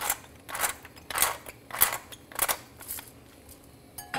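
Pepper mill grinding black pepper over a pan of sauce: about six short grinds, evenly spaced a little over half a second apart.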